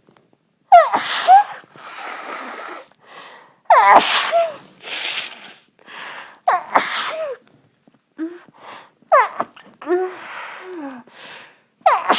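A person sneezing in a fit, about four loud sneezes in a row roughly every three seconds, each a sudden cry and blast of breath, with breathy noise between them. It is a sneeze fit set off by blowing the nose during a head cold.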